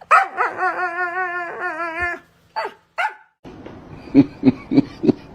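Dog howling in drawn-out calls with a wavering pitch for about two seconds, then two short sliding yelps. After a break comes a run of short low sounds, about three a second.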